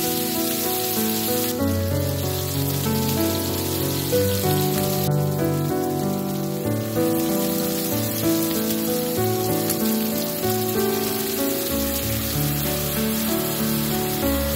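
Background music with a melody of steady pitched notes, over a continuous hiss that weakens for a few seconds in the middle.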